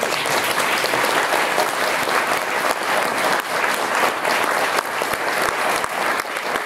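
Conference audience applauding a speaker at the end of a talk: many people clapping at a steady level.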